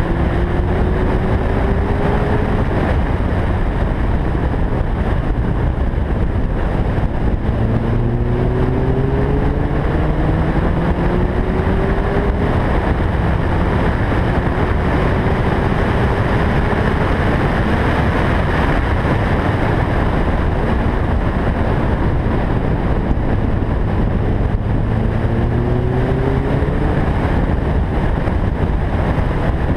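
2011 Lotus Elise's four-cylinder engine pulling hard up through the revs several times while lapping a race track, under heavy, steady wind and road noise.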